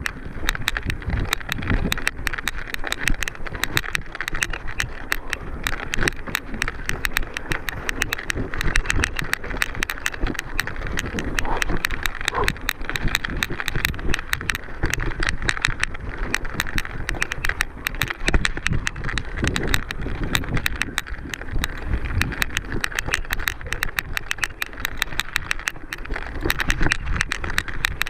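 Mountain bike ridden over a rough race trail: tyres, chain and frame rattling and clattering without a break, dense irregular knocks over a constant rushing noise.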